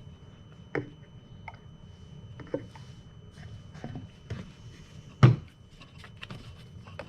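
Scattered light clicks and knocks from handling a brake fluid bottle and the reservoir cap while topping off the brake fluid reservoir, with one sharper knock about five seconds in.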